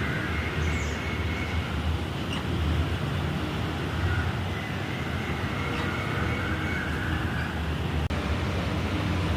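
Steady low rumble of road traffic, with a few faint high chirps over it.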